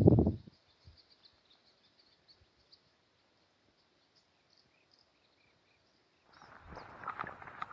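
A male common pheasant's harsh call, loud and rough, dies away within the first half-second. Faint high chirps of small birds follow over near quiet, and a noisy rustling starts about six seconds in.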